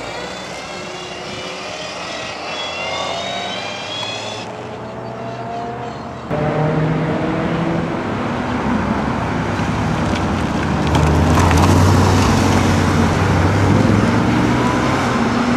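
Open sports cars accelerating past one after another, their engine pitch rising as each pulls away: first a small red roadster, then a Porsche Boxster's flat-six. The sound jumps suddenly louder about six seconds in and rises again near eleven seconds.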